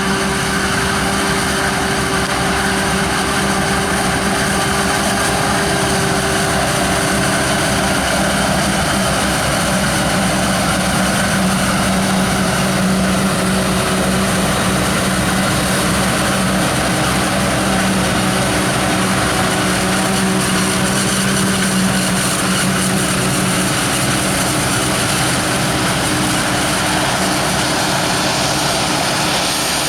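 Harvest machinery engines running under load: a loud, even drone with a steady hum through it, which shifts slightly near the end.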